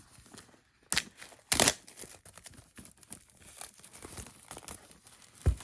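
Packaging being ripped open along its perforated tear strip: two sharp rips about one and one and a half seconds in, then rustling and crinkling as it is pulled apart, with a thump near the end.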